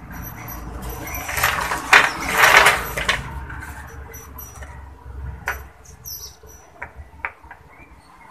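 Small clear plastic LED lens caps from a TV backlight rattling and scraping as they are handled on the panel, loudest about two seconds in, then a few separate clicks as single lenses are picked up and set down.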